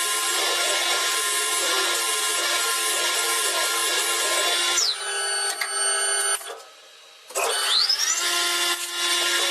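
Metalworking machine tool running with a steady, noisy whine. About five seconds in the pitch falls away and the sound drops off briefly, then a rising whine brings it back up to steady running.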